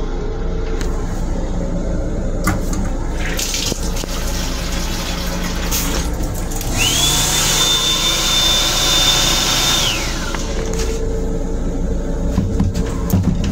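Water running from an M7 railcar restroom's sink faucet, hissing for about three seconds, with a motor whine that rises to a steady high pitch and then winds down as it stops. Under it runs the railcar's steady low hum, with a couple of clicks a few seconds in.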